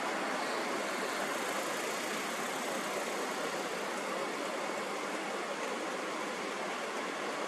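Steady, even rushing noise with no pitch or rhythm, like a continuous sleep-sound noise bed.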